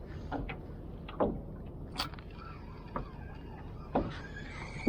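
Irregular knocks and clunks on a small fishing boat, about one a second, over a steady low rumble.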